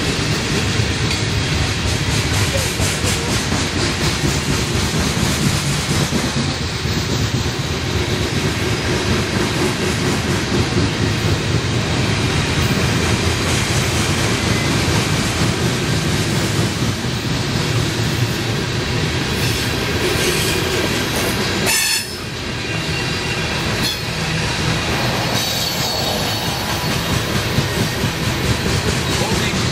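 Loaded coal hopper cars of a long freight train rolling past, their steel wheels rumbling and clattering steadily over the rails.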